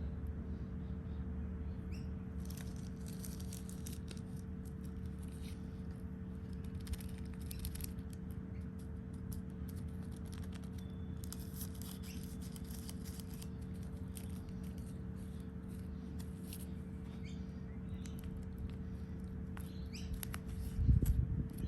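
Short bouts of light rustling and crackling from hands handling a paper seed packet over a seed tray, over a steady low hum. One louder dull knock comes near the end.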